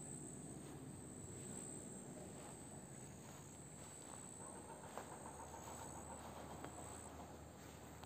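Faint, high-pitched insect trilling in long stretches that stop and start, over a low outdoor rumble, with a couple of small ticks midway.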